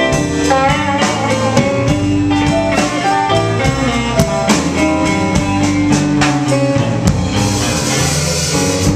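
Live blues band playing an instrumental passage: electric guitar lead with bending notes over bass and drum kit. A cymbal wash swells near the end.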